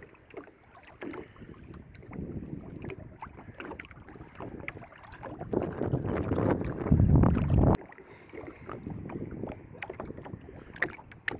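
Kayak being paddled on choppy river water: paddle strokes splashing and water lapping at the hull, with wind buffeting the microphone. A heavy wind rumble builds about six seconds in and cuts off suddenly near eight seconds.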